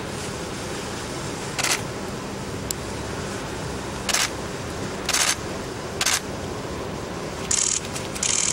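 Camera shutters clicking now and then, about six short snaps spread across a few seconds, over a steady background hush.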